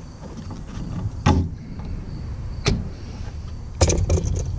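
Hands working a fuel filter and its rubber fuel hose loose under a towel on a mower: scattered knocks and clicks of handling, one about a second in, another near three seconds, and a quick cluster near the end.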